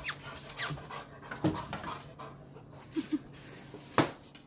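A dog panting, with a sharp knock about four seconds in.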